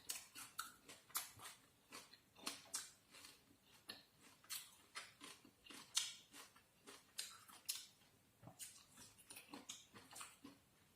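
Faint eating sounds close to the microphone: irregular small crunches and clicks, several a second, of someone chewing and biting food.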